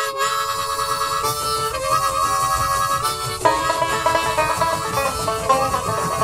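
Instrumental music of held chords that change every second or two, over a light low rhythm.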